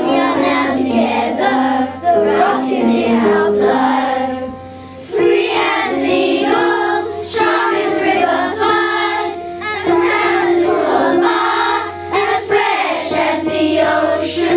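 A primary school children's choir singing together. The singing starts abruptly and dips briefly about four and a half seconds in.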